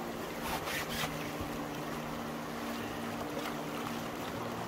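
Canoe running fast, rocky river water: steady rush of moving water around the hull, with a few short splashes or knocks about half a second to a second in. A faint steady low hum lies underneath.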